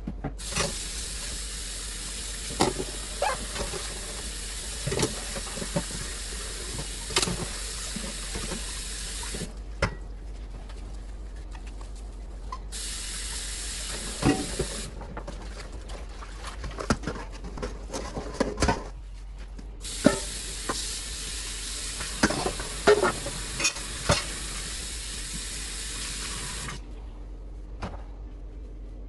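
Kitchen tap running into a stainless steel sink, turned on and off three times, with knocks and clinks as a steel pot is rinsed and handled.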